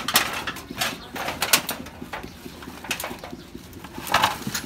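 Rustling and scraping in a pile of scrap metal and dry branches, heard as a series of short, irregular noisy bursts.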